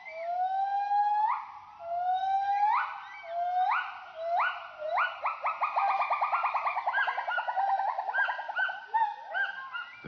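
White-handed gibbon giving its territorial hooting call: long rising hoots about every second and a half that quicken about five seconds in into a fast run of short notes, then slow again.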